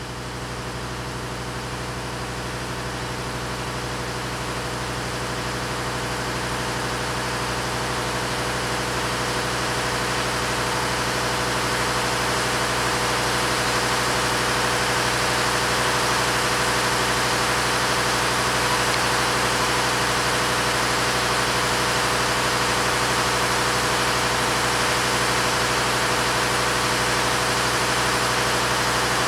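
Diesel locomotive engine running steadily with a low, even hum, growing louder over the first dozen seconds and then holding level.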